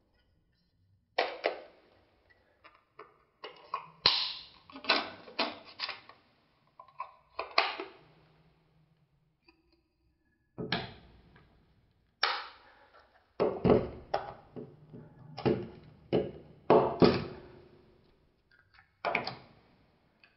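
Irregular knocks, taps and clicks of a speedlight and its packaging being handled on a hard surface, coming in clusters with short pauses between them.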